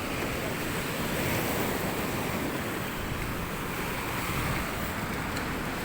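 Steady rushing noise of wind and water, with the wind buffeting the microphone.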